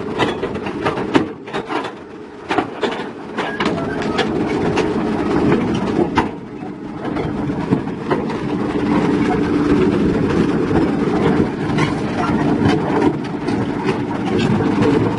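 Heavy diesel machinery running steadily, with irregular metallic clanks and knocks, most frequent in the first half.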